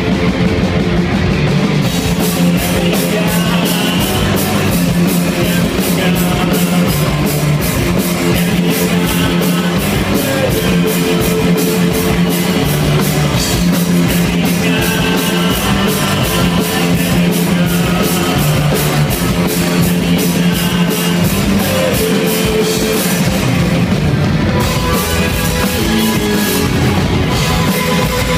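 Live rock band playing loud: electric guitars over a drum kit, with a steady, driving cymbal beat throughout.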